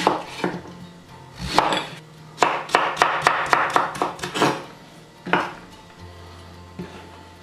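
Chef's knife cutting zucchini into julienne strips on a bamboo cutting board: a few single cuts, then a quick run of about ten chops, roughly five a second, and one more cut a little later.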